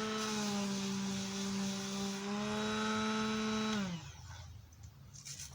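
Small electric power sanding tool running steadily with a constant motor whine. It is switched off about four seconds in, its pitch falling as the motor spins down, followed by a few faint handling clicks.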